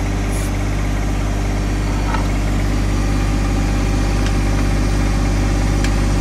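John Deere 1025R compact tractor's three-cylinder diesel engine running steadily at idle, with a few faint clicks.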